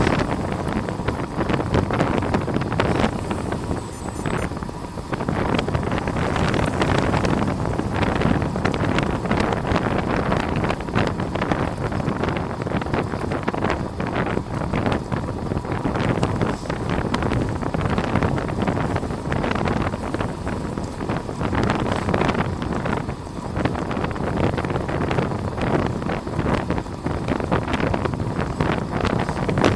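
Wind rushing over the microphone of a camera on a racing bicycle ridden at speed: a loud, steady roar that surges and flutters rapidly.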